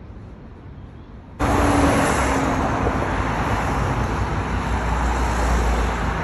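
Road traffic: cars driving past on a wide multi-lane road, a steady rush of engine and tyre noise. It starts suddenly about a second in, after a quiet low hum.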